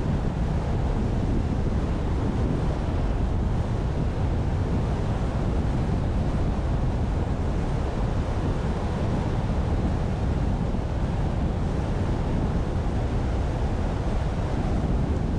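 A car driving at steady speed: a constant low rumble of tyre and road noise mixed with wind noise on the microphone.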